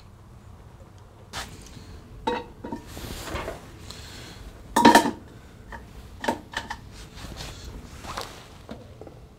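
Light metal clanks, taps and handling noises as an aluminium air cleaner base and round filter element are set onto a carburetor, the engine off. The loudest is a short, ringing metal clatter about five seconds in.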